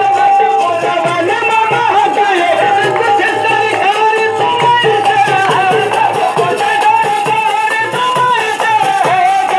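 Harmonium playing devotional music with a voice singing along over a steady percussion beat.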